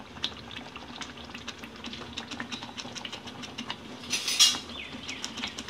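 Metal spatula stirring and scraping thick gravy in a non-stick frying pan, with many small clicks and taps. About four seconds in comes a brief, louder burst of noise.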